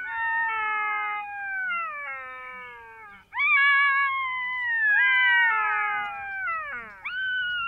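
Black-backed jackals howling: long wailing calls that jump up and then slide slowly down in pitch, several voices overlapping, with a fresh, louder howl about three seconds in and another near the end.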